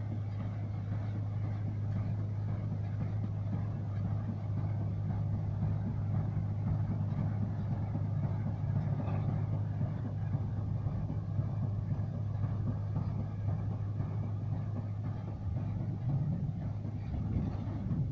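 Tractor engine running steadily under load while it drives a hay baler working through the field, a constant low hum.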